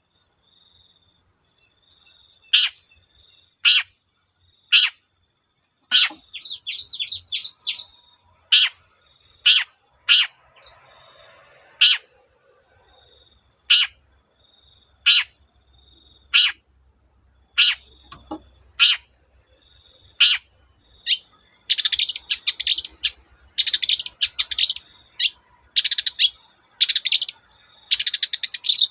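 Long-tailed shrike (cendet) calling: loud, sharp single notes about once a second, a quick run of notes about six seconds in, then dense rapid chattering from about twenty-two seconds on. A thin steady high tone runs behind it.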